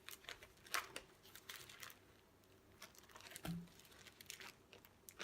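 Sheets of decoupage rice paper and their packaging being handled, with light scattered rustling and crinkling and a soft bump about three and a half seconds in.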